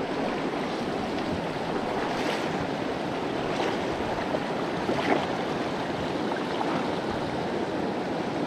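Fast river water rushing steadily over rocks, with a few faint short sounds on top about two, three and a half, and five seconds in.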